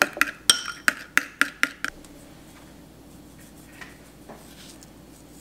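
Metal spoon clinking quickly against a ceramic bowl, about eight clinks in the first two seconds, as mayonnaise, garlic and lemon are stirred into an aioli. After that only faint sounds remain.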